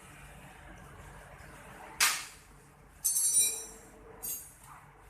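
A sharp knock about two seconds in, then metal clinking with a short ringing, twice.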